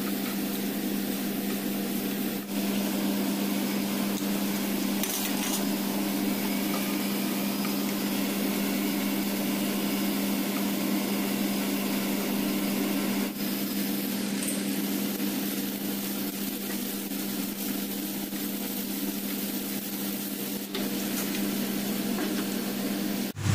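A wooden spatula stirring and scraping a ground-meat filling in a large non-stick pan, over a steady low hum. The sound cuts off abruptly at the end.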